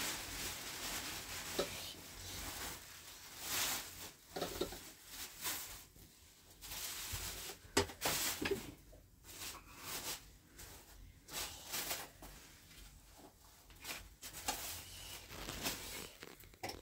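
A plastic food cloth rustling as it is spread out on the floor, then scattered clinks and knocks of a spoon and metal platters as rice is served from a pot and the dishes are set down.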